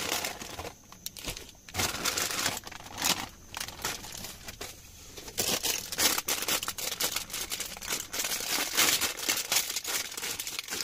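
Plastic sachets from an instant luosifen (river-snail rice noodle) pack crinkling in the hands and being torn open, in irregular crackling bursts.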